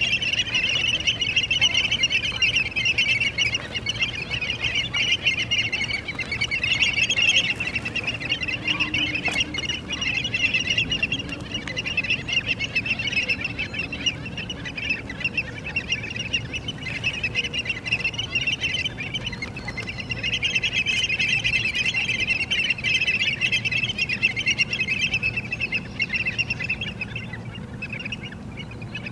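A flock of many birds calling all at once in a dense, continuous high chatter that eases off for a while in the middle and again near the end.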